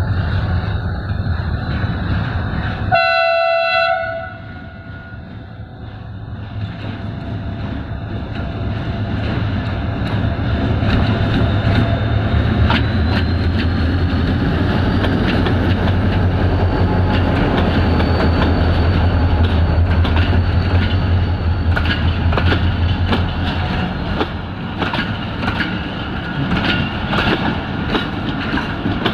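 Diesel-hauled passenger train passing: the locomotive sounds one horn blast about a second long, three seconds in. Its engine rumble then grows as it nears and goes by, and the coaches' wheels clack rapidly over the rail joints toward the end.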